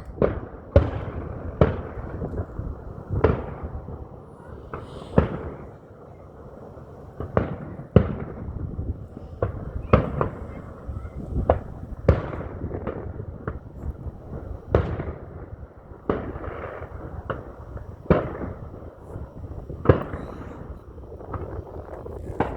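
Aerial fireworks bursting one after another, a sharp boom every second or so, each echoing away over a continuous low rumble.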